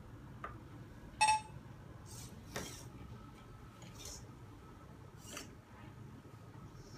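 A sharp ringing clink about a second in, then several short whirring bursts from the hobby robotic arm's servo motors as it swings over the board and lowers its gripper.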